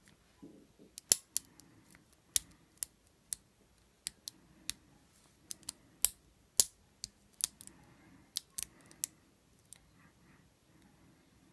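Lock picks working the wafers inside an old Yale wafer padlock, making irregular sharp metallic clicks, a couple of dozen over the stretch, with faint handling rumble between them.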